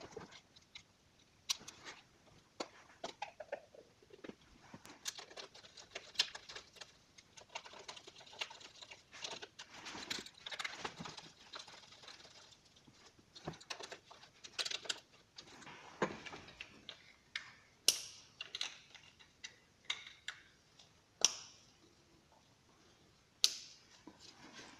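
Gloved hands fitting a plastic distributor cap and spark plug wires: irregular light clicks, taps and rattles of plastic parts, with a few sharper clicks in the second half.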